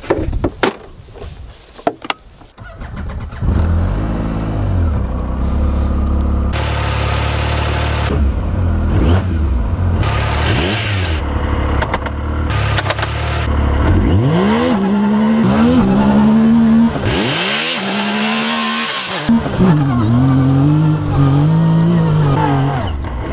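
Off-road side-by-side's engine: a few knocks and clatter, then the engine starts about three seconds in and runs steadily. From about halfway its revs climb and fall again and again as it is driven off.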